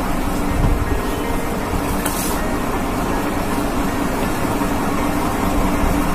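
Steady low mechanical rumble with a constant hum, and a short hiss about two seconds in.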